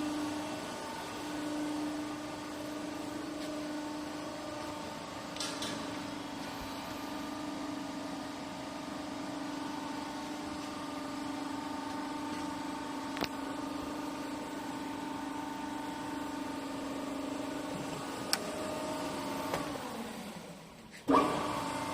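Electric motor and hydraulic pump of a 40-ton hydraulic rubber bale cutter running with a steady hum, with a few faint clicks. Near the end the hum falls in pitch and fades as it winds down, then a sharp knock.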